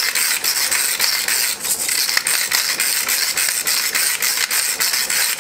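Ratchet pepper grinder being cranked, its ratchet clicking in a fast, even run as black pepper is ground.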